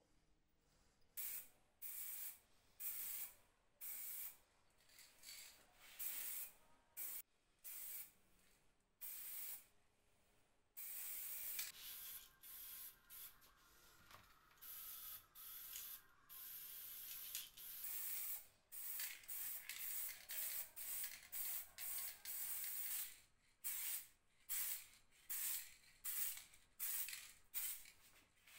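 Aerosol spray-paint can hissing in repeated short bursts of about a second each, with a longer, steadier stretch of spraying in the middle.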